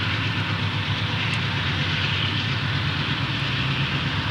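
Santa Fe diesel locomotives approaching, their engines running with a steady low drone under a steady hiss.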